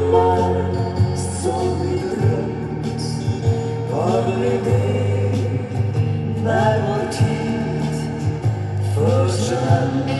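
Swedish pop song: a vocal sung in phrases over a band with a steady bass line and drums.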